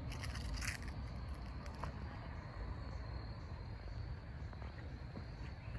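Outdoor ambience with a steady high insect chorus over a low rumble. A short crackle of rustling comes about half a second in.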